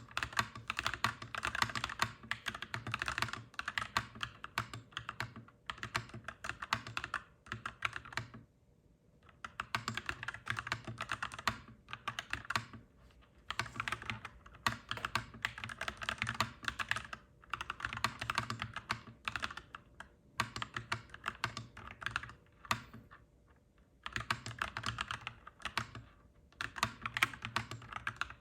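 Clacky mechanical keyboard being typed on steadily, fast runs of key strokes broken by brief pauses about every few seconds.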